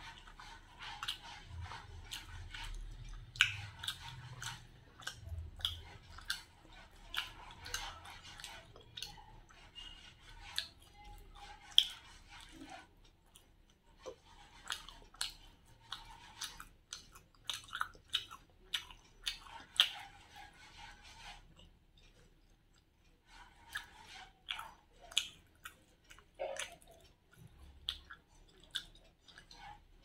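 A person chewing chicken with her mouth close to the microphone: irregular wet clicks and smacks, with a short lull about two-thirds of the way through.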